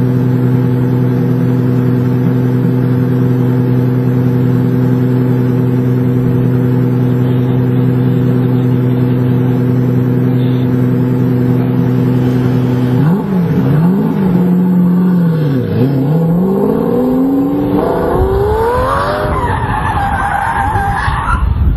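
A car engine held at steady high revs for about thirteen seconds, then revving up and down. Near the end come wavering high screeches, like tyres skidding.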